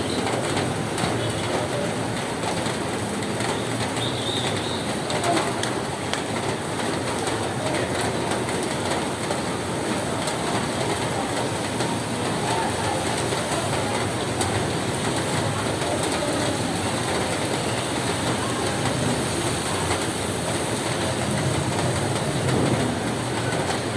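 Rain falling steadily on a roof, an even noise with faint scattered ticks.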